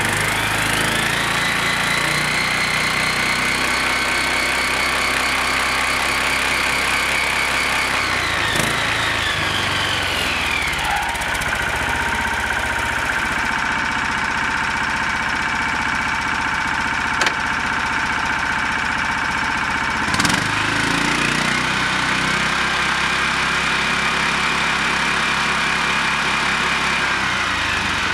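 Lifan KP460E 20 hp engine running with the straight-cut spur gears of the homemade gear-type reverse gearbox whining. The whine rises as the engine speeds up, holds, falls back about ten seconds in, rises again about twenty seconds in and drops near the end, with a few light clicks along the way.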